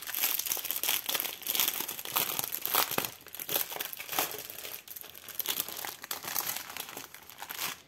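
Thin plastic zip-lock bags of diamond-painting drills crinkling and rustling unevenly as they are handled.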